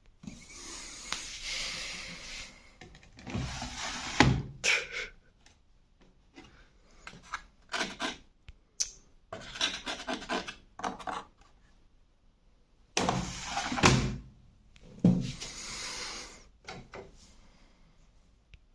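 Rubbing and scraping handling noises in a series of separate bursts, with a few sharp knocks, the loudest about four seconds in and again around fourteen seconds.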